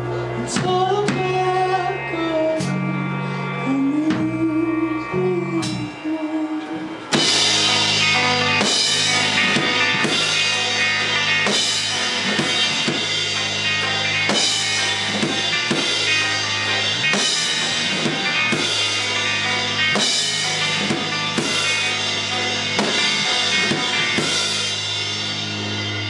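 Live rock band playing. Guitars alone at first, then about seven seconds in the drum kit comes in with cymbals and the full band plays on louder.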